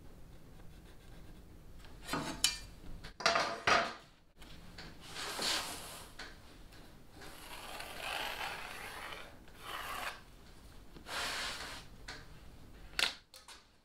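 Aluminium Makita track-saw guide rail being slid and shifted across a plywood sheet: a string of rubbing, scraping strokes of up to a second each, with sharper knocks about two and three seconds in and another near the end.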